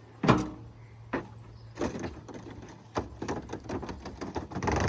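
Skateboard clacking and knocking against a pickup truck's bed during a kickflip attempt: one sharp, loud hit just after the start, a few lighter knocks, then a busier clatter near the end.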